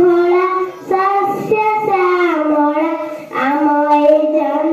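A young girl singing a patriotic song solo into a microphone, in held notes that step and glide between pitches, with short breaths between phrases.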